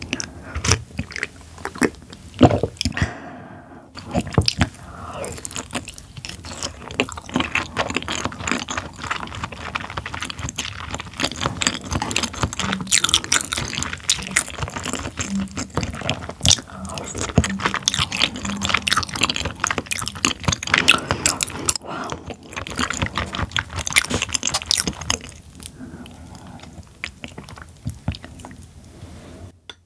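Close-miked chewing of raw tuna sashimi: a dense run of small mouth clicks that dies down near the end.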